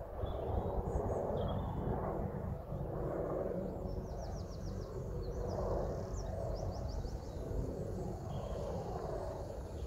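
Outdoor ambience: wind buffeting the microphone with a low, uneven rumble, and small birds singing in the background. A bird gives two quick trills of rapidly repeated high notes, about four and about six and a half seconds in.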